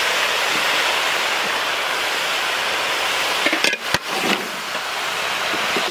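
Chopped mixed vegetables sizzling in hot mustard oil in a large karahi as they are sautéed: a steady hiss. A few sharp knocks about three and a half seconds in, after which the sizzle is a little quieter.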